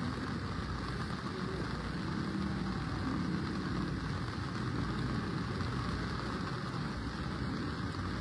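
Steady wash of floodwater and rain noise with a low vehicle engine hum underneath.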